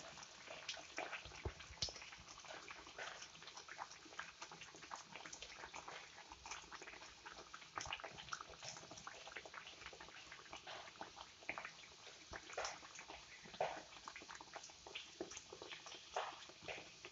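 Rice-flour ney pathiri deep-frying in hot oil in a steel pan: a faint, continuous sizzle dotted with irregular crackles and pops.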